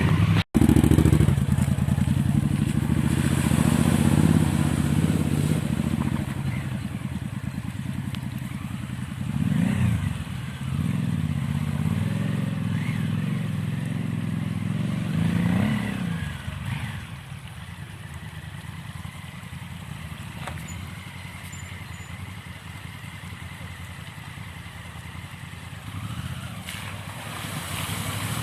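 Adventure motorcycle engine running under load, revving up and down several times, then quieter and steadier for the rest of the stretch.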